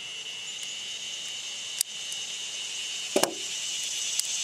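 Steady high-pitched insect chirring, growing slightly louder toward the end, with two sharp clicks about two and three seconds in.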